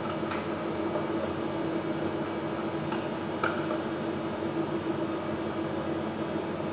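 Steady fan hum with a constant low drone, and a few faint clicks of chopsticks against a ceramic bowl.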